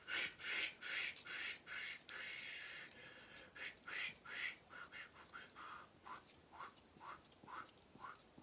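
Plastic kit parts squeaking and rubbing as they are pushed and twisted together, a run of scraping strokes giving way to short rising squeaks about twice a second.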